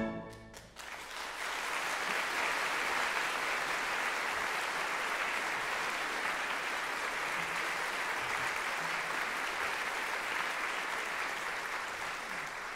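Audience applauding: steady, dense clapping that swells in about a second in after the orchestral music stops, holding even and fading near the end.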